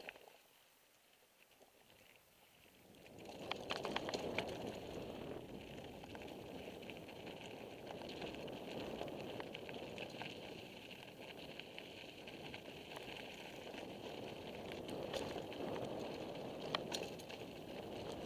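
Bicycle rolling down a dirt and gravel trail. Tyre noise and air rushing past the helmet-mounted camera, with scattered rattles and clicks. Nearly quiet at first, then the rolling noise starts about three seconds in and stays steady.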